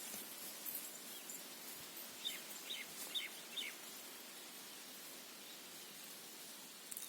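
Faint outdoor ambience with a bird giving four short, falling chirps in quick succession, a little over two seconds in.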